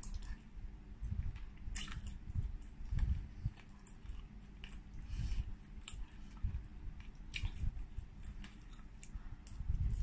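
Close-miked chewing of a slice of pork, soft and wet, with scattered sharp mouth clicks and smacks.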